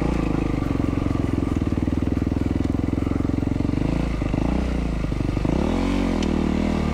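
2012 Yamaha WR450F's single-cylinder four-stroke engine running at a steady throttle while riding, then revving up and dropping back down about a second before the end.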